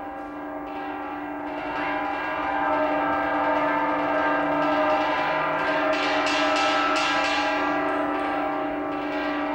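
Dense, bell-like metallic ringing from an experimental sound sculpture: many sustained tones layered together, swelling over the first few seconds, with light strikes or brushes sounding about six to eight seconds in.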